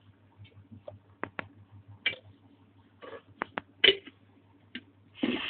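Sharp clicks and knocks of a spoon on an oil container and a frying pan as oil is spooned in: about eight separate taps, the loudest near four seconds in, then a short scraping rustle near the end.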